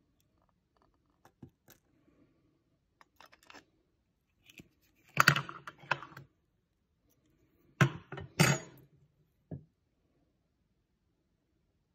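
Small metallic clicks and clatter as a miniature pistol and metal tweezers are handled, with two louder bursts of clattering about five and eight seconds in.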